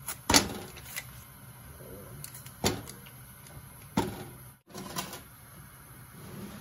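Foil-lined butter wrapper crinkling and tearing as a stick of butter is unwrapped over a nonstick pan, with several sharp crackles and clicks spaced about a second apart.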